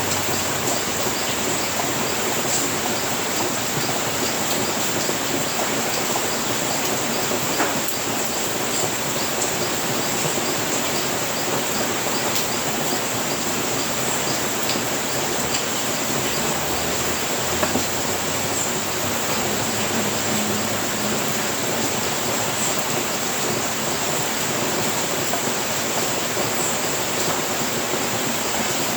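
Steady rain, an even hiss, with two brief louder knocks about eight and eighteen seconds in.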